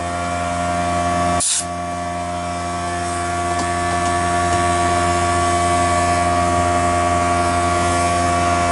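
Filter Queen Majestic vacuum's bare motor running, a steady many-toned hum that slowly grows louder, as its carbon brushes are being reseated. A short hiss cuts in about a second and a half in.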